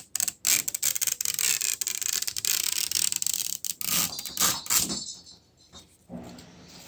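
Plastic packaging of an L.O.L. Surprise Under Wraps doll capsule being pulled open, a dense run of rapid crackling rasps for about five seconds that then falls to quiet rustling.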